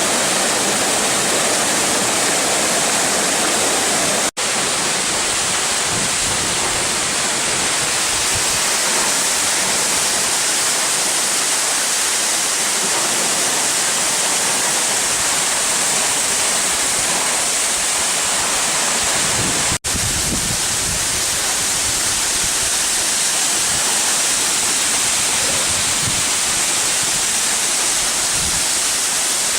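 Waterfall rushing: a steady, dense roar of falling water that hardly changes, broken by two brief drop-outs, one about four seconds in and one about twenty seconds in.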